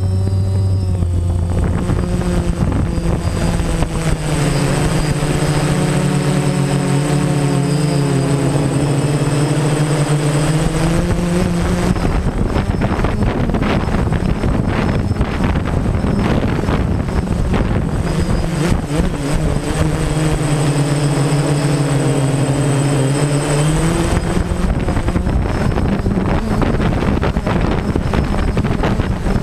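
DJI Phantom quadcopter's electric motors and propellers buzzing close to the on-board camera, their pitch swelling up and down as the drone flies. A rushing hiss and a thin, steady high whine sit underneath.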